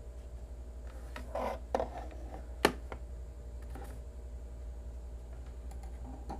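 Hand handling of small objects on a tabletop: a few soft knocks and rustles, one sharp click about two and a half seconds in, and fainter ticks later, over a steady low hum.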